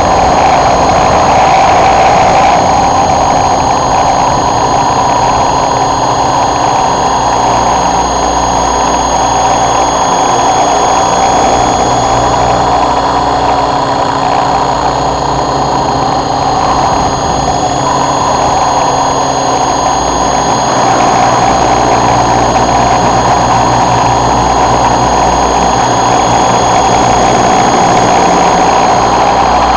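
Raptor E550S electric RC helicopter in flight: a steady motor and rotor whine with high, fixed whistling tones. Wind rumbles on the microphone and rises and falls.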